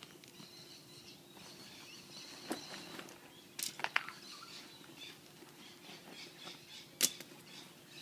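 Hands rummaging through a fabric fishing bag: a few short rustles and clicks of items being moved, the loudest about seven seconds in.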